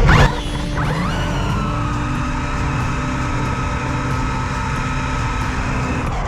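A loud clattering hit at the start, then an RC car's brushless electric motor whining up in pitch and holding a steady high whine at speed for about five seconds before easing off near the end.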